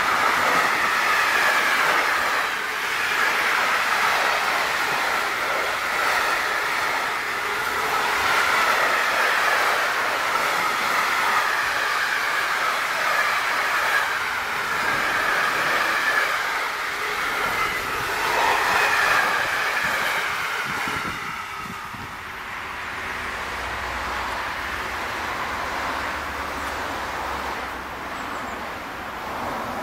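Freight train of container wagons rolling past close by: steady wheel-on-rail noise with a wavering high-pitched squeal from the wheels. About two-thirds of the way in the noise drops away as the last wagons pass, leaving a quieter low hum as the next train, an electric locomotive with car-transport wagons, approaches.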